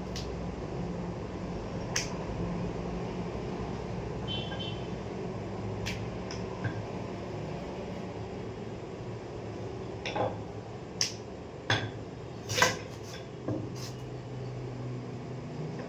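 Rolling out roti dough on a granite countertop: a handful of sharp knocks and taps, such as a rolling pin striking the stone, most of them bunched about ten to fourteen seconds in, over a steady low hum.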